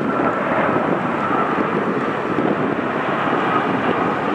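Jet engines of a Boeing 787 Dreamliner passing low on final approach with gear down: a loud, steady engine noise with a faint whine held at one pitch.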